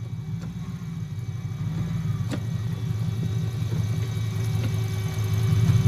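Humvee's V8 diesel engine idling steadily, running again after its fuel system was bled of air. It grows gradually louder.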